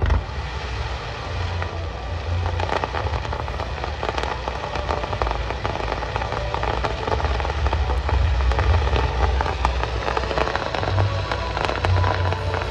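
Starmine fireworks barrage: shells bursting in rapid succession, with deep booms under a continuous crackling and popping that never pauses.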